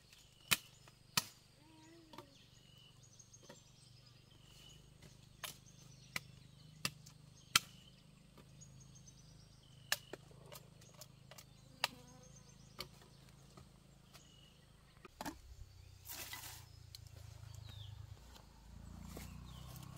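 A blade chopping sugarcane stalks: about a dozen sharp, single chops at an uneven pace. Near the end there is a short burst of rustling.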